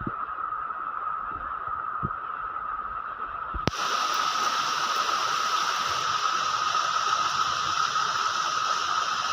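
Steady rain hiss with a constant high ringing band in it. About three and a half seconds in there is a sharp click, and the hiss then turns louder and brighter.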